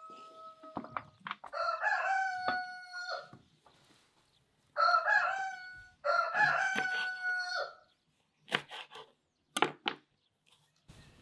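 Rooster crowing again and again, each crow a second or two long. Near the end come two sharp knife chops on a wooden cutting board.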